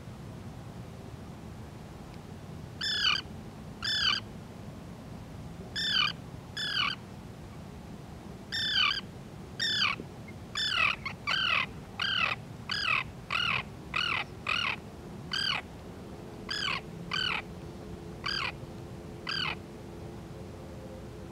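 Common tern calling: a series of about twenty harsh, downslurred calls. They come about a second apart at first, quicken in the middle, then slow and stop near the end.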